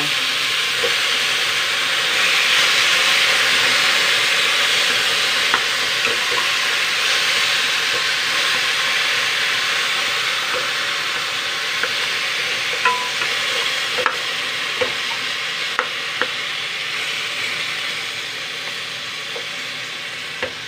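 Pork ribs sizzling as they sear in an aluminium pot with tomatoes and onions, being seared to draw out their juices. A wooden spatula knocks against the pot now and then as the meat is stirred. The sizzle is loudest a few seconds in and slowly eases off.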